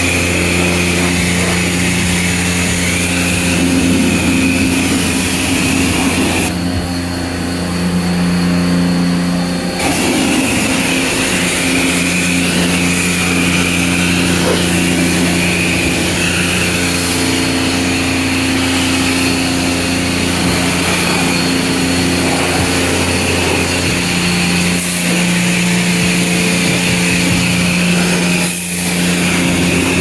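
High-pressure car wash spray gun spraying water, over the steady low hum of the bay's pressure pump. The spray hiss cuts out for about three seconds starting about seven seconds in, then resumes.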